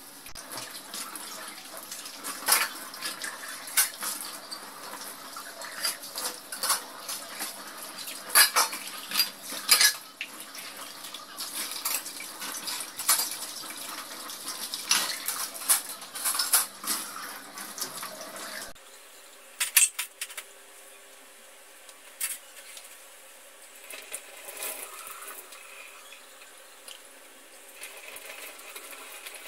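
Steel dishes and utensils clinking against each other and the stainless-steel sink while being washed and rinsed under a running tap. The clinks come thick and fast at first, then thin out about two-thirds of the way through, leaving mostly the splash of running water.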